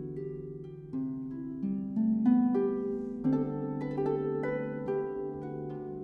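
Concert pedal harp played solo: plucked notes and chords ringing on over lower sustained notes, a new note or chord about every second.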